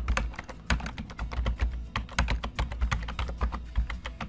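Typing on a computer keyboard: a quick, irregular run of key clicks as a line of commands is entered.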